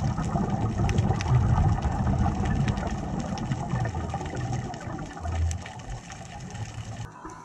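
Low, chopped rumbling with scattered clicks, picked up through an underwater camera housing. It is loudest at first, fades, and swells again briefly about five seconds in.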